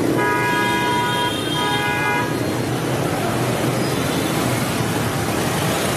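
A vehicle horn honks twice in the first two seconds, a longer honk and then a shorter one, over steady street traffic noise.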